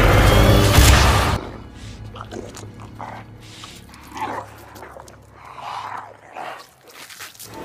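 Film sound effects: a loud battle din of crashes and blasts that cuts off suddenly about a second and a half in, followed by a low steady hum with a few short animal-like cries.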